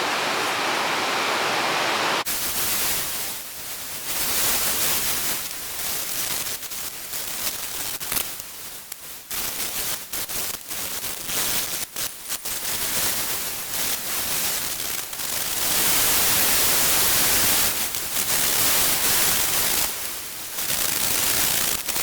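Harsh, scraping metalworking noise from a steel cutlass blade being filed and ground down, its loudness rising and falling unevenly. It follows a steady hiss that cuts off abruptly about two seconds in.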